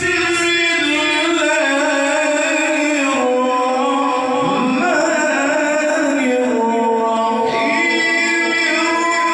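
A man chanting Quranic recitation (tilawat) in a melodic style into a microphone. He holds long notes and slides between pitches with ornamented glides.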